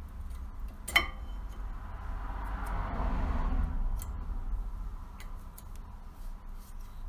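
Metal clicks of a brake pad being fitted into the caliper bracket, with one sharp click about a second in. A short noise swells and fades in the middle, followed by a few lighter clicks.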